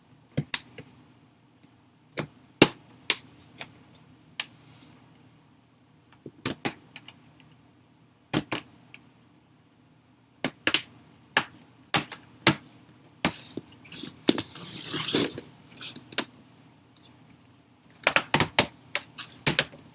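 Plastic snap clips of an Asus S530F laptop's bottom cover clicking loose one after another, at irregular intervals, as a thin iSesamo pry tool is worked around the edge. There is a stretch of scraping about fifteen seconds in and a quick run of clicks near the end.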